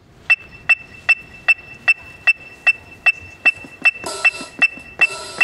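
Marching band percussion opening a show: a steady, sharp, high-pitched tick, like a woodblock, about two and a half times a second. About four seconds in, sustained held notes and a high hissing wash come in under the ticking.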